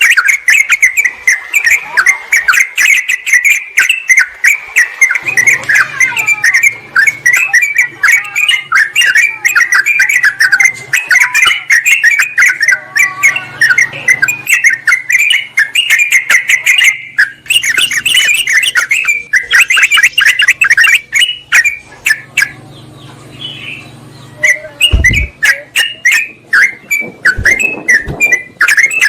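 Yellow-vented bulbuls (trucukan) chattering in a dense, fast run of short bubbly notes: excited, noisy 'ribut' calls used as a lure to draw wild birds in. The chatter thins briefly toward the end, and a short low thump comes about 25 seconds in.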